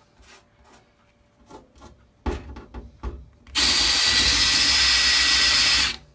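Cordless drill with a twist bit countersinking a screw hole in the sheet-metal backplate of a TV's LED backlight. It runs steadily for about two and a half seconds in the second half and stops just before the end. Before that come a few light clicks and one sharp knock as the bit is set into the hole.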